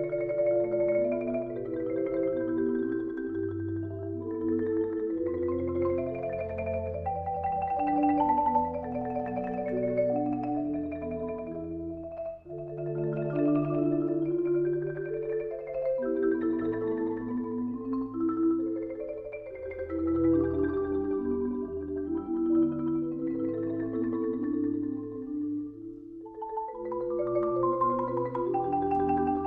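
Instrumental background music: a melody with chords over a bass line, briefly dropping out about twelve seconds in and growing quieter before swelling again near the end.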